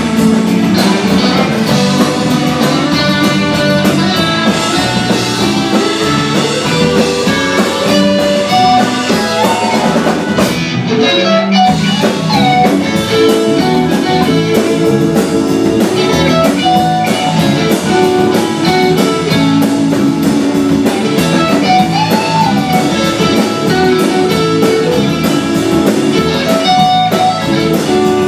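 Southern rock band playing live, an instrumental stretch: electric guitar lines with bent notes over a drum kit.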